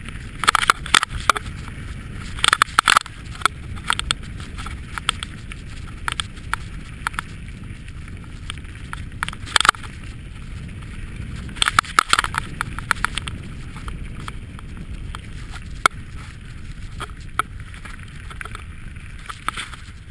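Mountain bike descending a rough gravel dirt track at speed: a steady low noise of wind and tyres on the ground, with bursts of clattering rattles as the bike bounces over bumps, heaviest about a second in, around three seconds, near ten seconds and around twelve seconds.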